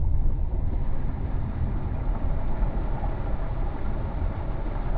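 Car driving through floodwater on a road, heard from inside the cabin: a steady low engine and road rumble with a continuous wash of water against the car.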